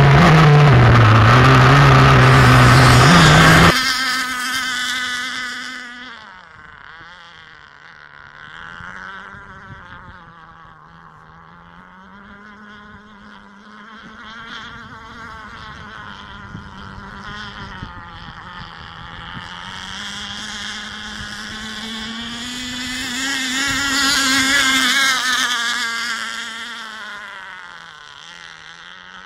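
Radio-controlled Prater Lap Cat boat's K&B 7.5cc two-stroke glow engine running at high revs. For the first few seconds it is loud and close, heard from on board the boat. After that it becomes a thin, distant whine that rises and falls in pitch as the boat runs across the water, and it grows louder again a little past two-thirds of the way through as the boat comes nearer.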